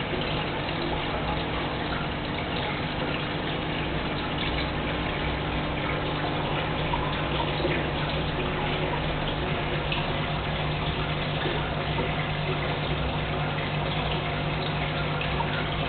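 Aquarium aeration and pump running steadily: air bubbles rising and gurgling at the water surface over a constant low hum.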